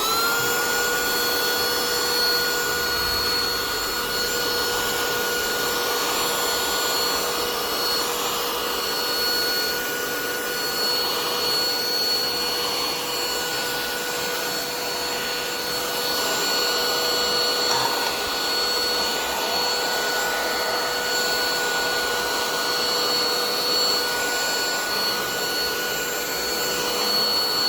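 Small cordless handheld vacuum cleaner running steadily at full speed with a high motor whine and rushing air, picking up spilled chia seeds.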